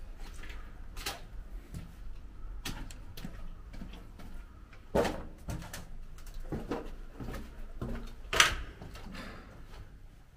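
Footsteps scuffing and crunching over a littered hard floor, irregular short knocks and scrapes, the loudest about five seconds in and just past eight seconds.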